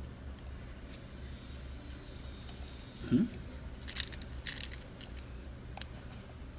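Small sharp clicks and clinks of a SIM card and tray being handled and pushed into a small dual-SIM adapter, in a few quick clusters past the middle. There is a brief low hum-like sound just before them, over a steady low background hum.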